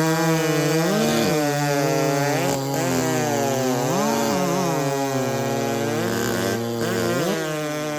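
Two-stroke racing chainsaw engines in the 90cc class running at a steady high pitch, with several short revs where the pitch swoops up and falls back.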